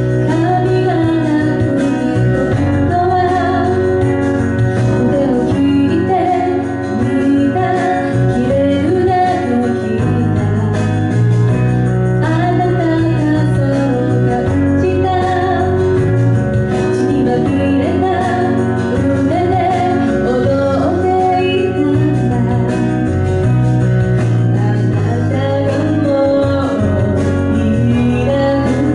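Woman singing a slow ballad live through a handheld microphone, her voice gliding over sustained keyboard chords.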